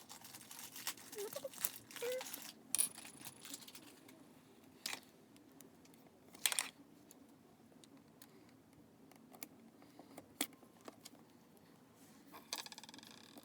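Scattered light clicks and brief rustles of a small plastic figure, its accessories and sticker sheet being handled, with the sharpest clicks about five, six and a half and ten seconds in.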